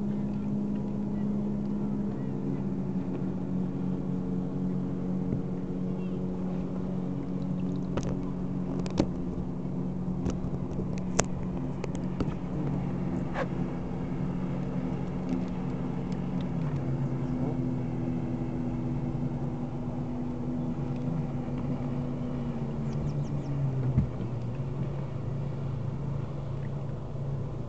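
Boat motor running steadily. Its pitch steps down a little past halfway and slides lower again a few seconds later. A few sharp clicks and knocks come through over it.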